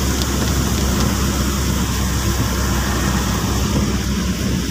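Car driving in heavy rain, heard from inside the cabin: a steady low engine and road drone under an even hiss of rain and wet-tyre spray.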